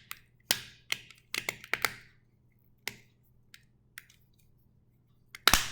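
Sharp plastic clicks from the two halves of a Honda key fob's casing being pressed and snapped together: a quick run of clicks in the first two seconds, a few scattered ones after, and one louder click near the end.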